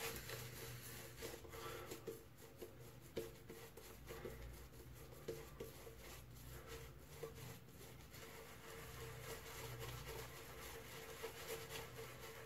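Silvertip shaving brush worked over the face, building lather: faint soft brushing with small irregular wet clicks from the lather.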